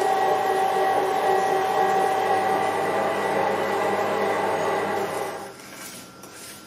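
Electric meat grinder running steadily under load, its motor humming as it grinds whole insects into a paste. The sound fades out about five and a half seconds in.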